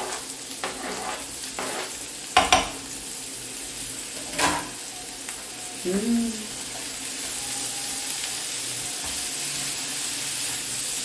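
Sausage, bacon and chickpeas frying in oil in a nonstick pan, with a steady sizzle, as chopped banana is scraped off a cutting board into it. A few sharp clicks of utensils against the board and pan come about two and a half and four and a half seconds in. The sizzle grows a little louder from about seven seconds in as the pan is stirred.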